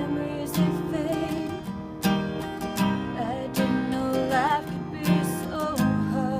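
Acoustic guitar strummed in a slow, steady rhythm, with a voice singing a few long, wavering notes over it.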